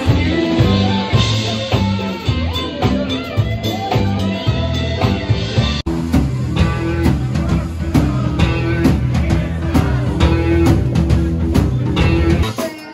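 Background music with a steady beat and bass line, cut off for an instant about six seconds in and then carrying on.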